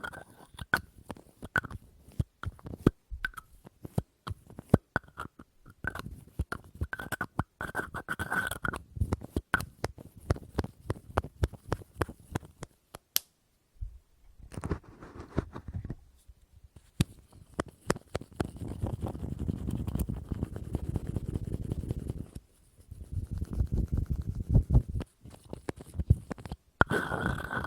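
Close-up ASMR tapping on household objects: quick sharp taps, some ringing briefly. From about 14 s it gives way to rapid, dense scratching and rubbing in stretches.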